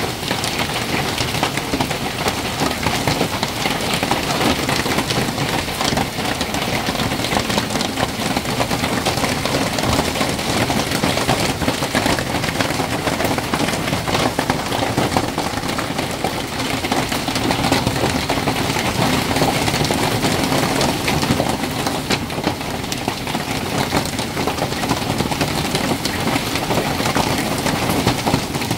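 Hailstorm with heavy rain: a steady, dense clatter of countless hailstones and raindrops hitting paving stones and garden surfaces.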